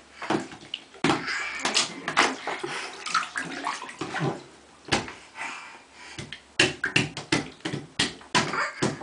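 Bathwater sloshing and splashing in a tub as a toddler stands and moves in it, with many sharp, irregular slaps and taps.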